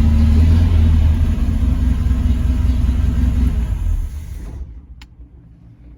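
Triumph TR6's straight-six engine running, freshly started with a push-button ignition; it eases off after about a second and dies away about four seconds in as it is switched off, followed by a single faint click.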